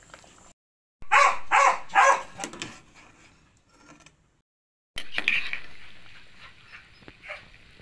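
A dog barking: three loud, short barks in quick succession about a second in, then a fainter bark about five seconds in. The sound cuts out abruptly twice between clips.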